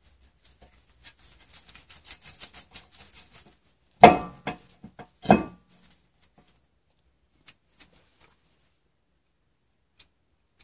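Screwdriver turning an anti-seize-coated flat-head rotor retaining screw into a car's brake hub: a run of small rubbing clicks as it threads in, then two loud knocks about four and five seconds in, with a few faint taps after.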